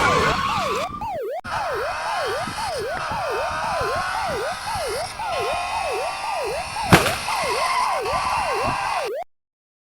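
Police car siren in a fast yelp, its pitch sweeping up and down about twice a second. A sharp bang comes about seven seconds in, and the siren cuts off abruptly just before the end.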